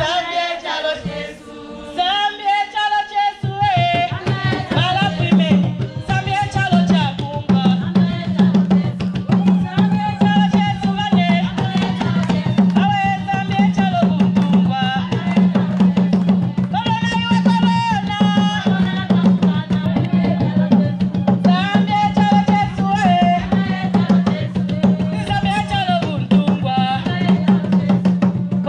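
A woman sings into a microphone, alone at first. About three and a half seconds in, a group of large wooden hand drums comes in with a fast, steady beat under her singing.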